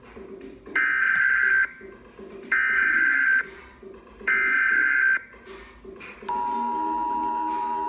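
Emergency Alert System header: three bursts of modem-like data tones, each just under a second long and evenly spaced. About six seconds in, the steady attention tone that announces the alert begins.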